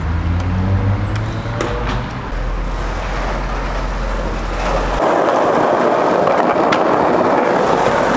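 Skateboard wheels rolling over a concrete sidewalk. A steady low rumble turns louder and rougher about five seconds in, with a couple of sharp clicks along the way.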